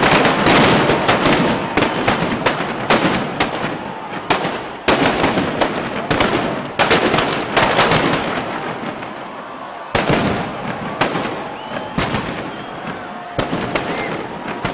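Firecrackers exploding in quick, irregular volleys of sharp bangs, the charges packed into the burning Böögg effigy. They are densest at first and thin out and get quieter toward the end.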